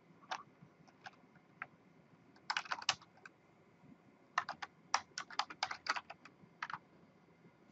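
Typing on a computer keyboard: a few single keystrokes, a short quick burst about two and a half seconds in, then a longer run of rapid keystrokes that stops just before the end.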